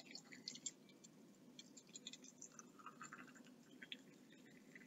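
Faint trickling and crackling of hot water being poured from a stainless jug into a glass jar packed with potatoes, with small scattered clicks as the jar fills.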